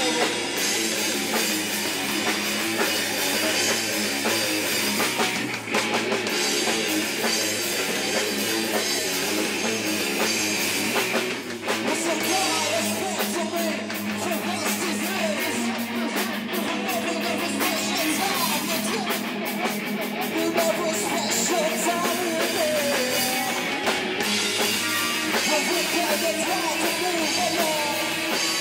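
A live rock band playing: electric guitars, bass guitar and a Tama drum kit together at full volume, with two brief breaks in the music about six and eleven seconds in.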